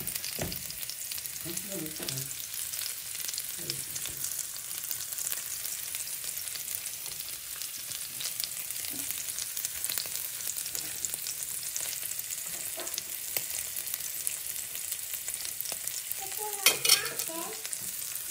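Steak frying in butter with garlic and rosemary in a grill pan: a steady crackling sizzle. A short, louder knock comes near the end.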